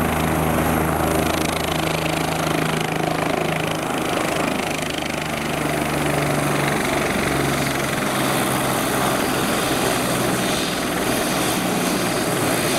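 Bell 427 twin-turbine helicopter running on the ground, main rotor turning: a steady turbine and rotor noise with a low hum that eases off about two-thirds of the way through.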